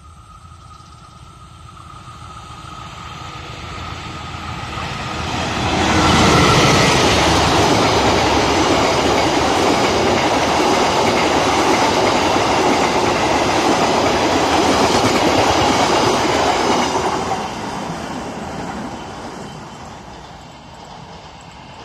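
Argo Wilis diesel-hauled passenger express approaching and passing close at speed: locomotive and wheel-on-rail noise swell over the first six seconds, stay loud for about eleven seconds as the coaches go by, then fade as the train draws away.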